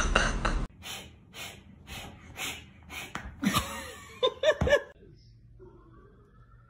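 A man laughing hard: breathy, wheezing bursts of laughter about twice a second, then a few louder, higher-pitched cries of laughter near the end.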